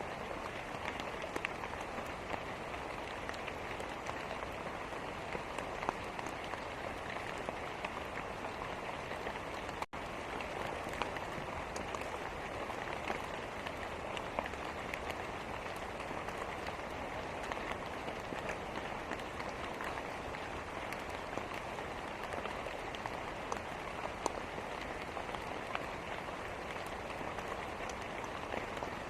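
Steady rain with scattered sharp pops and crackles from a wood fire. There is a momentary dropout about ten seconds in.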